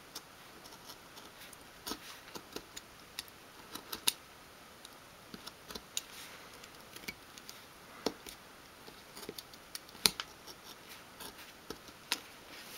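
Craft knife blade scoring a curved line into thin wood sheet in short repeated strokes: faint, irregular scratches and clicks as the tip goes back over the line to deepen the score.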